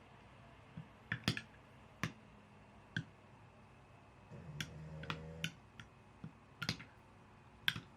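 Irregular sharp clicks and taps, about eight to ten of them, with a short low buzzing hum about halfway through.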